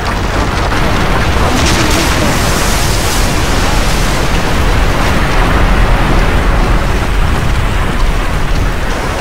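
Loud, steady rush of churning seawater and breaking waves from a film soundtrack, strongest about two to three seconds in.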